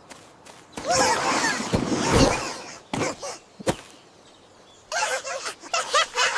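Cartoon creature sound effects. About a second in comes a long breathy sneeze-like burst, then two short pops. Near the end, rapid high chirping calls start.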